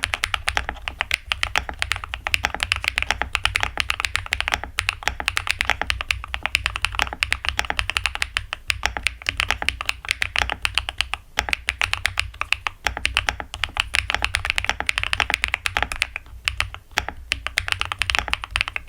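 Continuous fast typing on a Kiiboom Breeze 75% mechanical keyboard with linear switches: a dense, steady stream of keystroke clicks.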